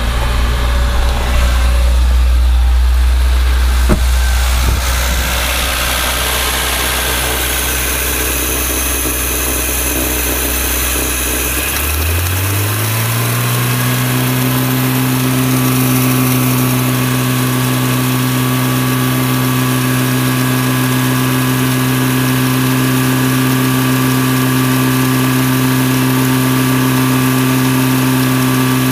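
Car engine with a Weber 32/34 DMTL two-barrel carburettor running cold at a low, steady idle. About twelve seconds in, its speed rises smoothly and then holds steady at a faster idle.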